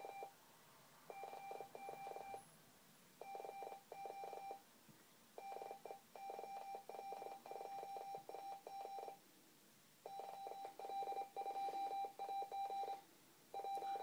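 Morse code (CW) tone from a President Jackson radio receiver: one steady beep keyed on and off in dots and dashes, in character groups with short gaps and a longer pause partway through. The signal is an amateur station sending a CQ call with its call sign YL2AG, a general call inviting any station to reply.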